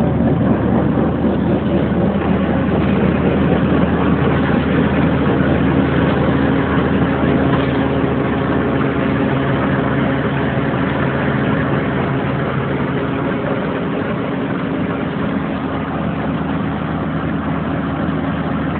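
OMC Model 420 grinder mixer running steadily under tractor power, a constant mechanical drone at an even engine speed that grows slightly quieter over the second half.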